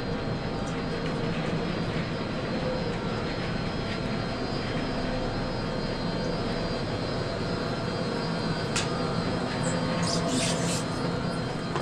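Snowbird's Peruvian Tunnel conveyor belt running with a steady mechanical drone and hum. A sharp click comes about three quarters of the way in, followed by a few brief high scrapes.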